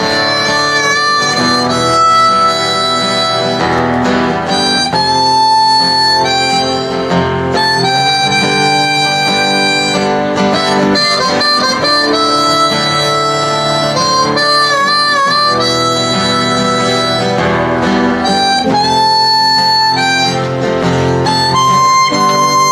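Live band music: a harmonica plays a melody of long held notes, some bent and wavering, over acoustic guitar chords.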